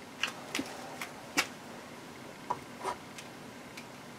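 About eight light, uneven clicks and taps of a tool against a plastic console part during a plastic-welding repair, the loudest about a second and a half in, over a faint steady hiss.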